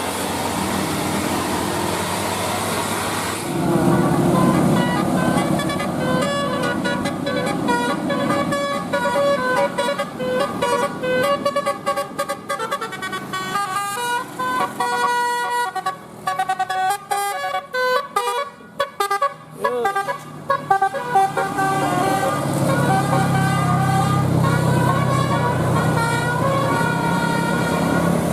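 Bus telolet horn, a multi-tone musical air horn, playing a tune of quick stepping notes, heard from inside the bus cabin. Underneath runs a low rumble that is loudest about four seconds in and again near the end.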